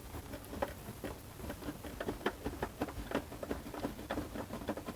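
Screwdriver working a screw out of a boombox case: a run of small, irregular clicks and taps, several a second.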